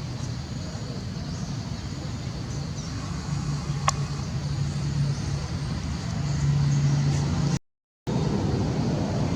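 Steady low rumble of a motor vehicle engine, with a single sharp click about four seconds in; the sound cuts out for half a second near the end.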